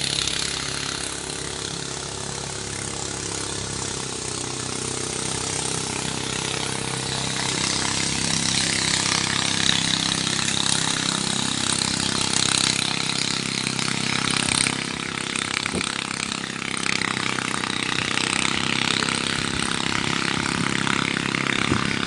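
A small engine running steadily, its pitch drifting slightly, over a steady hiss.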